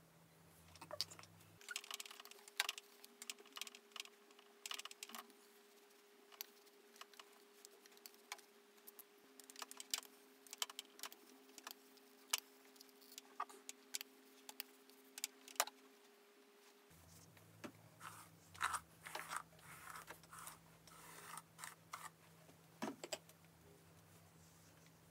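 Long hair being handled and styled with a flat iron: soft rustling of hair with scattered small plastic clicks and clacks as the iron is clamped and released, busier near the end.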